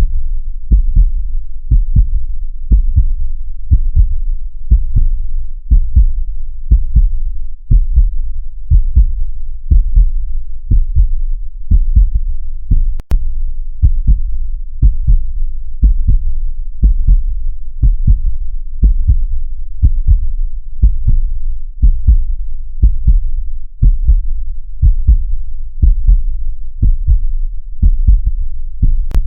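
A heartbeat beating steadily at about one beat a second. Each beat is a low double thump, lub-dub. There is a brief click near the middle.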